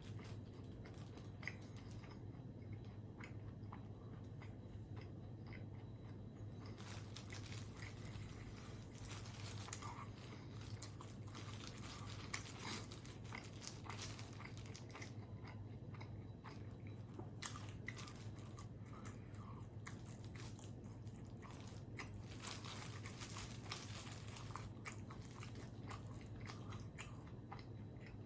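Close-miked eating of burgers and chicken nuggets: repeated bites, crunches and chewing mouth sounds, over a faint steady low hum.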